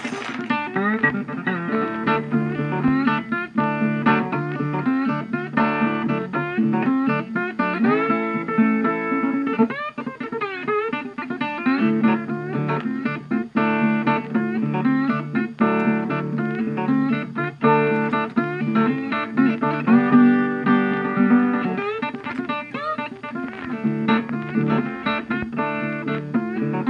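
Background music: a guitar piece of plucked notes, with some notes sliding in pitch.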